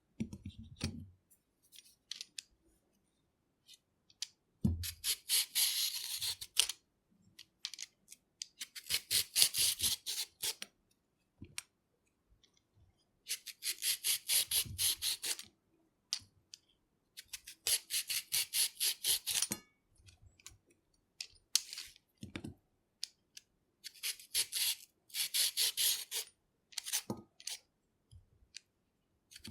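Hand vegetable peeler scraping along carrots in quick runs of rapid strokes, each run lasting about two seconds, with short pauses between runs and a few dull knocks as the carrot is handled.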